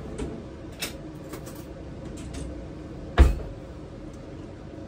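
Kitchen handling sounds: a few light clicks and clinks as a utensil is fetched, then one heavy thump about three seconds in, over a low steady hum.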